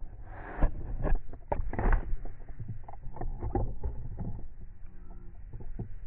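Muffled low rumble with irregular knocks and clatters from an SUV jolting slowly along a rough, overgrown forest track, picked up by a camera on a stick held out of the sunroof.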